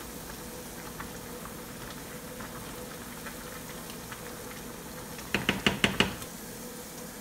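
Wooden spatula stirring par-boiled rice in a pot of boiling water over a steady low hiss. About five seconds in comes a quick run of about eight knocks against the pot.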